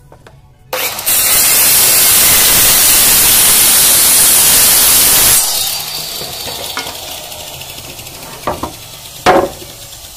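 A small handheld electric cutter machine, a compact circular saw, starts up about a second in and cuts across a wooden plank for about four seconds. It is then switched off and runs down. Two sharp knocks follow near the end, the second very loud and brief.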